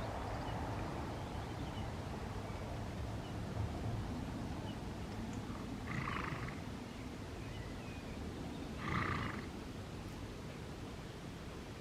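Two short, harsh animal calls about three seconds apart, over a steady low background rumble.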